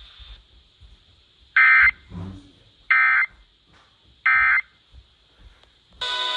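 Emergency Alert System end-of-message: three short digital data bursts, the SAME 'NNNN' end-of-message code, about 1.3 seconds apart, closing a relayed severe thunderstorm warning. Near the end a louder, sustained sound made of several steady tones begins.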